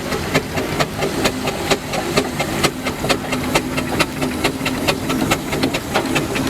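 Steam traction engine running slowly: a steady hum with a sharp clicking about three times a second.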